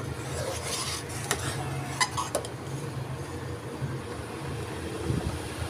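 A metal ladle stirs and scrapes through a steel saucepan of thick, curdled colostrum milk (boli), with a few light clinks against the pot over a steady low hum.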